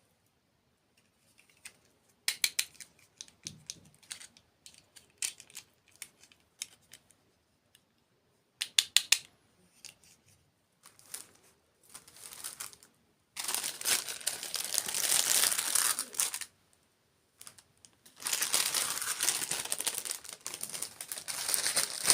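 Close-miked crinkling and crunching, as in ASMR eating of crunchy desserts: scattered sharp clicks and crackles at first, then two long stretches of dense crackling in the second half.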